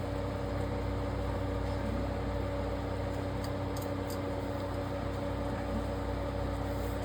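A steady machine hum with a few fixed low tones, holding level throughout.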